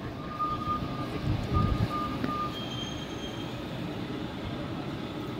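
Steady outdoor background noise with low rumbling, broken in the first half by a few short, high beeps at one pitch and one longer, higher tone.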